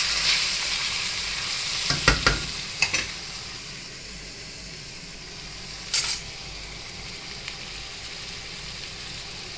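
Boiled vegetables sizzling in hot oil in a steel kadai as they are stirred with a wooden spatula, with a few sharp knocks of the spatula against the pan about two to three seconds in. The sizzle dies down to a quieter steady hiss after about four seconds, and one more knock comes near the middle.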